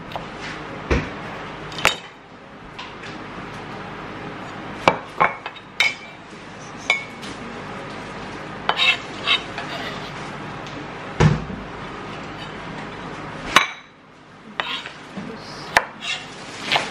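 Chef's knife knocking and tapping on a wooden cutting board, with clinks of a ceramic plate as the chopped cilantro is moved onto it; the knocks come at irregular intervals, with one heavier thud about eleven seconds in, over a steady low background noise.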